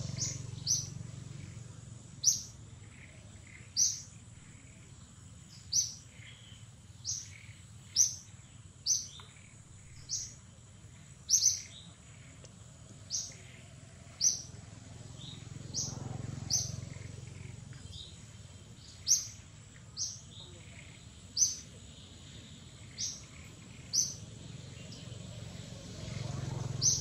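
A bird chirping over and over: about twenty short, high chirps, each dropping quickly in pitch, one every second or so, over a low background rumble that swells twice.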